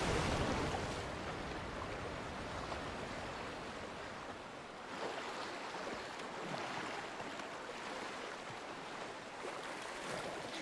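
Whitewater river rapids rushing over rocks in a steady roar, loudest at the start and easing slightly partway through.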